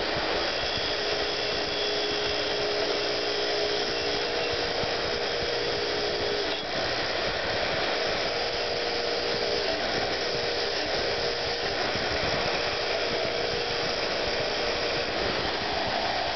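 Bench grinder's wire wheel running steadily with a rusty steel hatchet head held against it, stripping off the rust: a constant grinding hiss with a faint steady whine.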